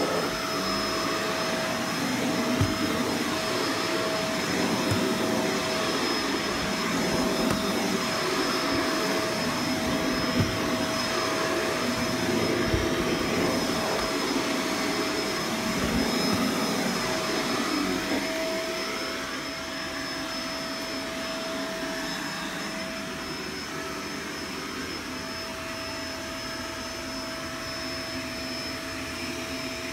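Vacuum cleaner running steadily, a whooshing drone with a steady motor whine, with occasional knocks and bumps from the nozzle during the first two-thirds. About 18 seconds in it grows a little quieter and the knocks stop.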